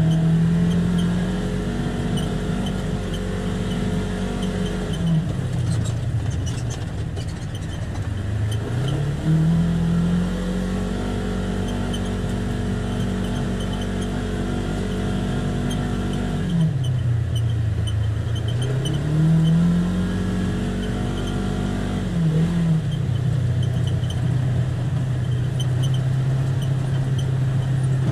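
Polaris Ranger XP 1000's twin-cylinder engine and belt-drive transmission under way, heard from inside the enclosed cab. The engine note holds steady, drops away and climbs back twice as the throttle is eased and reapplied, then settles at a lower steady pitch in the last few seconds.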